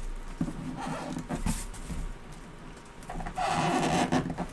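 Cardboard box and packing being handled: scattered knocks and scrapes, with a longer, louder scrape about three seconds in as the photo is worked out of the box.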